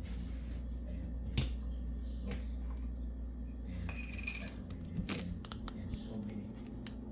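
Scattered clinks and knocks of dishware being handled: about half a dozen sharp ones spread through, one with a brief ringing tone near the middle, over a steady low hum.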